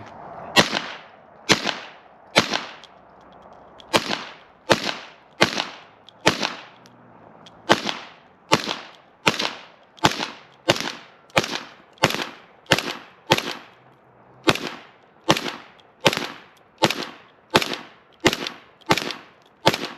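Suppressed Kel-Tec P50 pistol in 5.7x28 mm fired semi-automatically: about two dozen sharp shots at a steady pace of roughly one every 0.7 seconds, with a few brief pauses. Each shot has a short decaying tail.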